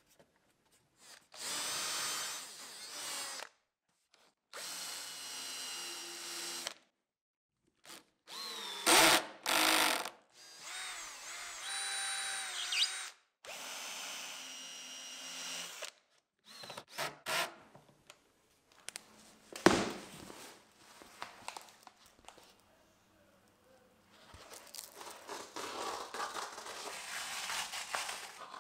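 Cordless drill working into an MDF speaker cabinet, in about five short runs of roughly two seconds each, its motor whining. Near the end comes a utility knife scraping as it cuts a foam-backed sheet along a straightedge.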